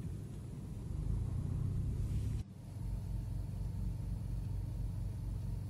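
A low, steady outdoor rumble with no clear engine note. It breaks off sharply about two and a half seconds in, then resumes a little quieter.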